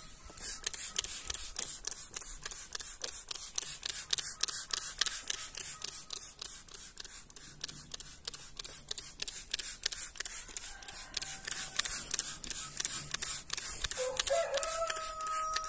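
Plastic trigger spray bottle being pumped rapidly, a sharp click and hiss of spray with each pull, several a second. A rooster crows near the end.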